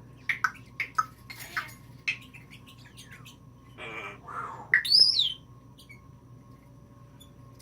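African grey parrot making a run of short clicks and chirps, then a short harsh squawk about four seconds in and a loud whistle that sweeps up and back down.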